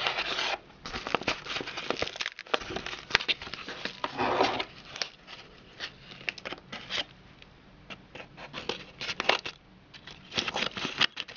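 Padded kraft-paper mailing envelope rustling and crinkling as it is handled and cut open with scissors, in irregular crackles and sharp clicks.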